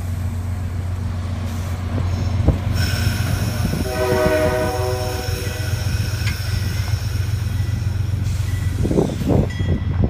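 Amtrak Amfleet passenger cars rolling past with a steady low rumble and a thin high wheel squeal. About four seconds in, the GE P32-8WH locomotive's Nathan K5LA air horn sounds one short chord up ahead. Near the end comes a burst of clattering as wheels cross rail joints.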